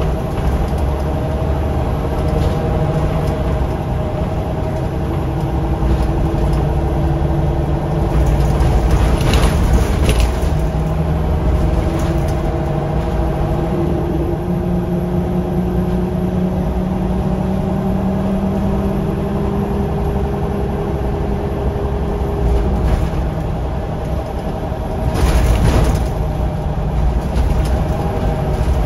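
Scania L94UB city bus heard from inside the passenger saloon on the move: its diesel engine and drivetrain run with a steady rumble. The pitch climbs slowly through the middle as the bus pulls through a gear. Two brief hissing noises come about nine seconds in and again near the end.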